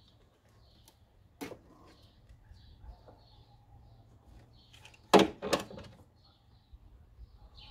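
Sharp snaps from hand work on the washer pump's wiring: one about a second and a half in, then two louder ones close together about five seconds in. Faint bird chirps repeat in the background.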